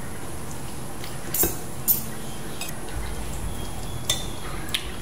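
Spoon and fork clinking against plates and a bowl during a meal: a handful of sharp, separate clinks, the loudest about two seconds in.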